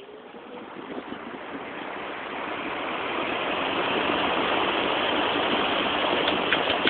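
A 1973 Lakewood metal-bladed box fan starting up. The rush of air builds over about four seconds as the blades come up to speed, then holds steady, with a few light ticks near the end.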